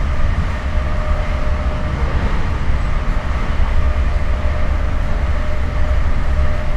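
Inside an Amtrak passenger car running fast: a steady deep rumble with a faint, even hum above it.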